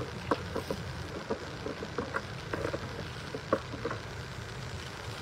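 Room tone in a legislative chamber: a steady low hum with scattered light clicks and knocks.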